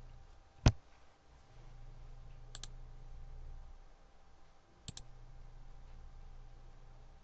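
Computer mouse button clicking: one sharp, loud click under a second in, then two quick double clicks about two and a half and five seconds in, over a steady low hum.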